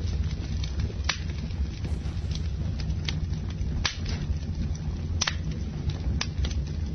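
Crackling fire recording: irregular sharp pops and cracks over a steady low rumble of burning.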